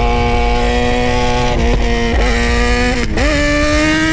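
A Suzuki GSX-R600 sportbike and a Dodge Charger Scat Pack running side by side, heard from inside the car. A steady engine tone holds, dips briefly about three seconds in, then climbs steadily as the revs rise.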